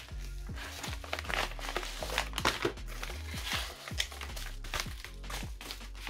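Paper and plastic packaging crinkling and rustling in the hands as a package is pulled out of a padded mailer and unfolded, in irregular handling noises over background music with a steady bass line.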